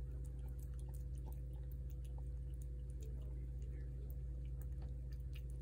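A cat eating shredded chicken from a plate: wet chewing and lapping, heard as many small irregular clicks. A steady low hum sits underneath.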